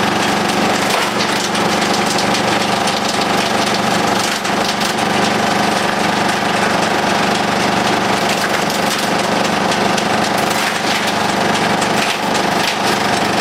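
Demuth DPM drum chipper, driven off a tractor's PTO shaft, running steadily while chipping rubberwood: a constant low machine tone with a higher whine above it, under dense cracking and splintering of wood.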